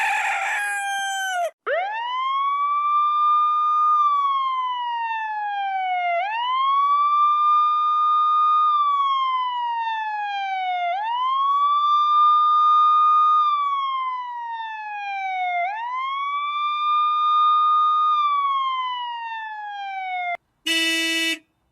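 Timer alarm sounding as a wailing siren: each cycle sweeps up quickly, holds, then slides slowly down, four cycles about every four and a half seconds. Near the end a short, harsh horn-like blast cuts in.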